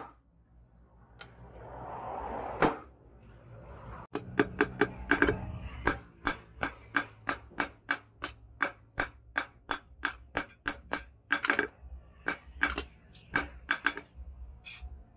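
Hand hammer forging a red-hot leaf-spring steel knife blade on a steel-pipe anvil: a single blow, then from about four seconds in a steady run of blows at about three a second.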